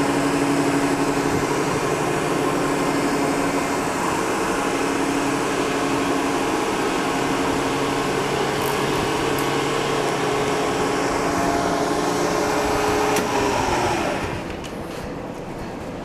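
Milling machine spindle running with an end mill cutting into a plastic block as the work is fed across, a steady hum. About thirteen seconds in, the motor is switched off and the pitch falls as the spindle winds down, leaving a few light clicks.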